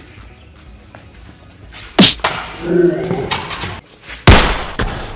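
Two loud, sharp bangs about two seconds apart, the second the louder, with a brief voice between them.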